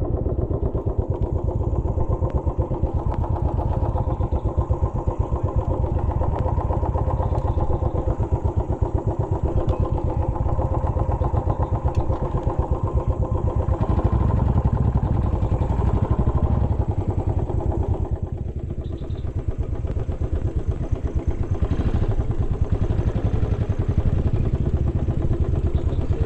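Royal Enfield motorcycle engine running steadily under way with a fast even pulse of firing strokes, easing off briefly about two-thirds of the way through, then pulling again.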